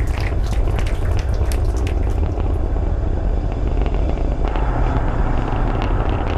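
Falcon 9 rocket engines during ascent: a loud, deep, steady rumble with sharp crackling that thins out after about three seconds.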